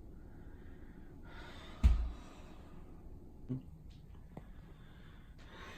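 A person breathing heavily, with a dull thump about two seconds in and a softer knock later.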